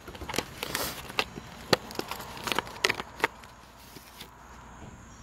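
Cardboard and plastic packaging of a replacement headlight bulb being handled and opened: a run of sharp clicks and rustles over the first three seconds, then quieter handling.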